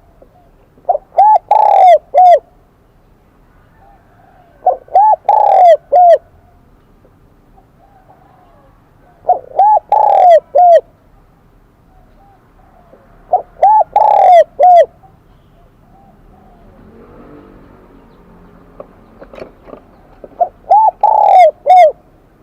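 Spotted dove cooing in the high, bell-like "kim đồng" voice: five phrases of three or four notes each, about four seconds apart. This is a decoy dove's call used to draw in wild doves.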